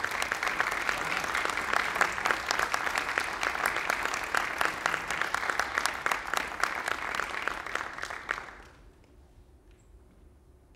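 Audience clapping, a dense patter of many hands, that dies away quickly about eight and a half seconds in, leaving quiet room tone.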